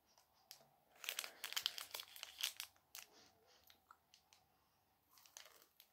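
A chocolate bar's plastic wrapper crinkling as the bar is held in it and bitten, with crunchy bites into the wafer-and-cereal Lion bar. There is a dense run of crackling about a second in, scattered clicks after, and another short burst near the end.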